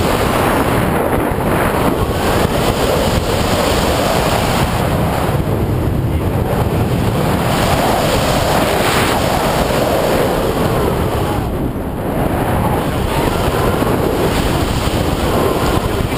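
Loud, steady wind noise from airflow over the camera's microphone during a tandem paraglider flight, easing briefly twice.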